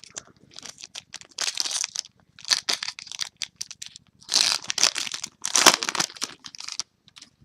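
Foil trading-card pack wrapper being torn and crinkled by hand, in about four bursts of rustling and tearing, the loudest two in the second half.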